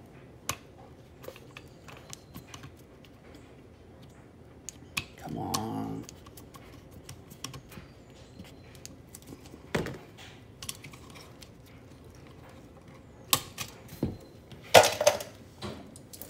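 Scattered small clicks and metallic ticks of a screwdriver working the terminal screws of an electrical wall receptacle while its wires are handled, with a brief low pitched sound about five seconds in. A louder burst of clatter comes near the end as the receptacle is pulled away from its wires.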